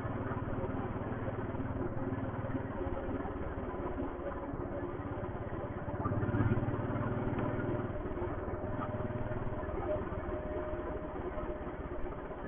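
Royal Enfield Thunderbird's single-cylinder engine running under way, getting louder for a second or so about six seconds in.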